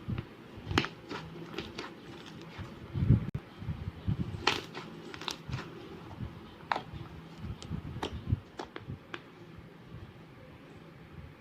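Slime being squished and worked by hand, making irregular clicks and pops with soft thumps.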